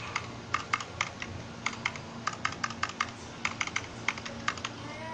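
Typing sound effect: about twenty quick, irregular key clicks with short pauses, in step with on-screen text being typed out letter by letter, over a low steady hum.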